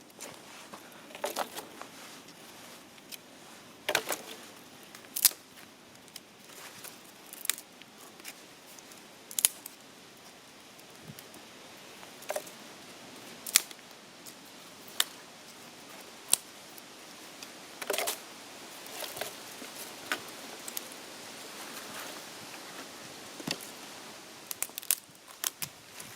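Wood fire crackling, with sharp pops at irregular intervals over a faint hiss.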